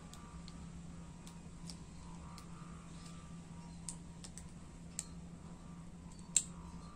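Scattered light clicks and taps, a few seconds apart, the sharpest about six seconds in, over a faint steady low hum.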